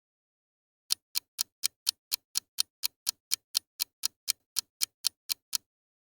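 Clock ticking sound effect: about twenty sharp, even ticks at roughly four a second, starting about a second in and stopping shortly before the end.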